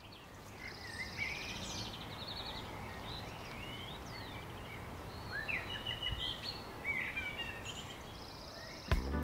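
Several wild birds chirping, trilling and whistling over a steady outdoor background hiss, fading up over the first second. Music comes in right at the end.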